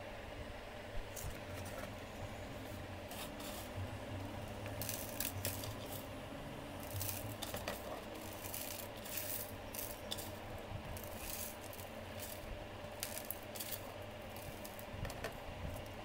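Hands handling clear plastic containers and a small plastic fitting: repeated light scraping, rubbing and rattling of plastic, coming in irregular clusters from about five seconds in, over a steady low background hum.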